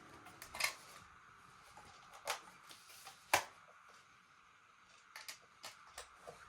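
Scattered light clicks and knocks of handling, with the sharpest one about three seconds in and a quick run of small taps near the end, over faint room hiss.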